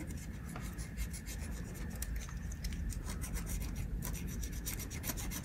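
Cotton swab scrubbing corroded copper traces on a circuit board: continuous fine, scratchy rubbing as the corrosion from a leaked battery pack is cleaned off.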